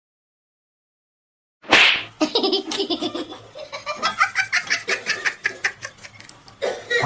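After a second and a half of silence, a sudden sharp burst, then a person laughing hard in rapid, rhythmic pulses.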